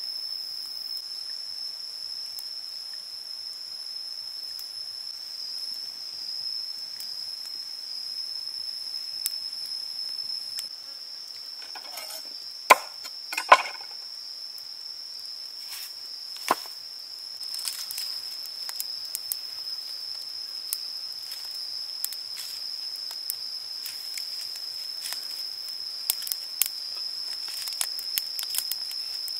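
Insects droning in one steady high tone throughout. Just past the middle come two loud sharp wooden knocks, then another a few seconds later, and small scattered ticks and crackles of a wood fire follow near the end.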